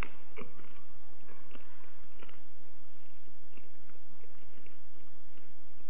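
A person chewing a communion wafer, with small crunching and mouth clicks that come thickest in the first two seconds and thin out into faint ticks.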